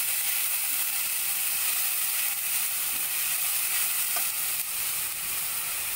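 Ginger-garlic-chili-onion masala paste sizzling steadily in hot oil in a kadhai as it is roasted (bhuna), stirred with a spatula that scrapes lightly against the pan now and then.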